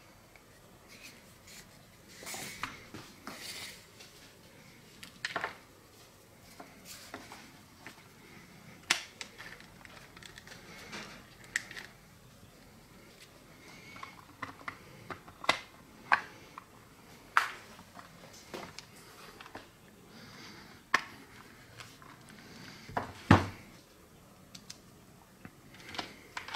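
Plastic housing and small parts of an electric drill being handled and fitted together by hand, giving scattered sharp clicks and knocks with a few short rustles, and one louder knock near the end.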